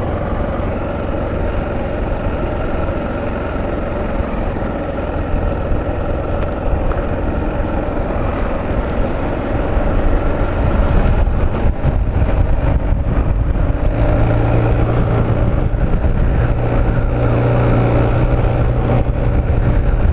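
Motorcycle engine running steadily on the move, with a heavy low rumble of wind on the microphone. The engine grows louder about halfway through.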